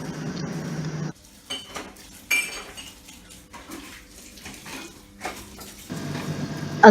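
Light clinks and taps of hard objects being handled, with one sharper, ringing clink a little over two seconds in. A steady low hum sounds during the first second and returns near the end.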